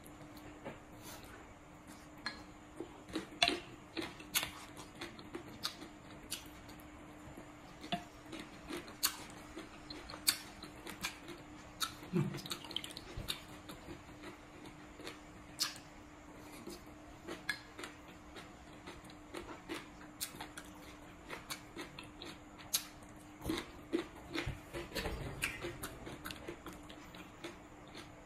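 Close-up eating sounds of green papaya salad: irregular crunchy chewing and wet mouth sounds, with wooden chopsticks clicking against a ceramic plate and bowl. A faint steady hum runs underneath.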